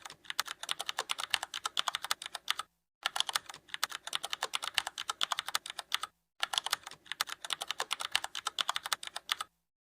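Rapid keyboard typing clicks in three runs of about three seconds each, separated by short silences.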